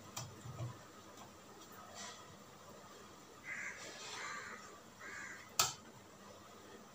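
A crow cawing three times in quick succession, starting about three and a half seconds in, followed by a single sharp click.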